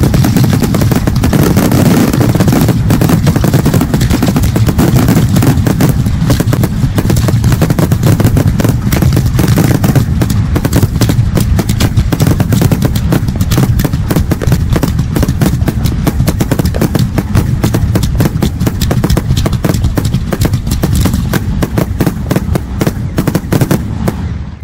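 Fireworks finale barrage: aerial shells bursting in rapid, overlapping succession, a dense stream of reports over a continuous low rumble, easing slightly just before it stops at the very end.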